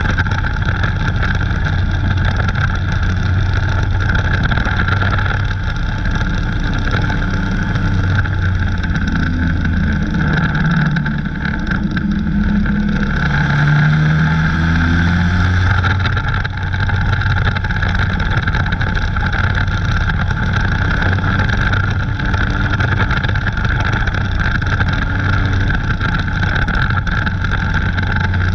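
Dirt-track race car's engine running hard at racing speed, heard from inside its cockpit as a steady drone. Around the middle the engine note dips and climbs back up as the driver lifts and gets back on the throttle.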